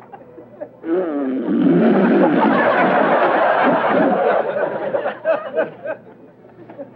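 Audience laughter: many people laughing together, swelling up about a second in and dying away a couple of seconds before the end.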